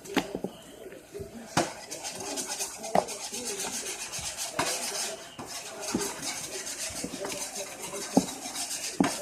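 A utensil knocking and clinking against a bowl, with scraping and stirring sounds in between.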